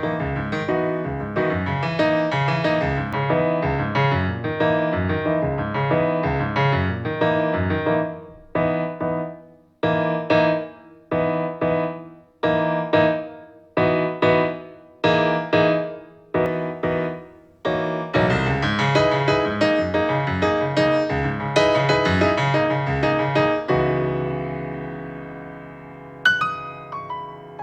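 Jazz piano music played back through a portable Bluetooth speaker. It opens with flowing playing, then detached chords struck about once a second, each dying away, then fuller playing that settles on a held chord fading out, and a sharp high note near the end.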